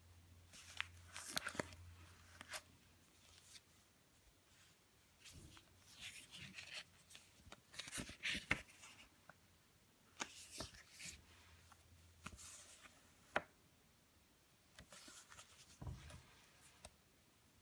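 Faint, intermittent rustling and light taps of paper booklets and leaflets being leafed through and shifted by gloved hands.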